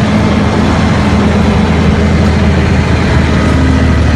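Heavy diesel truck engine running steadily with a deep, low rumble. It starts and stops abruptly, as an inserted sound effect does.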